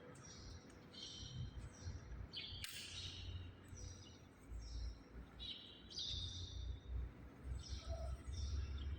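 Small birds chirping in short, repeated high calls, about one or two a second, over a low uneven rumble.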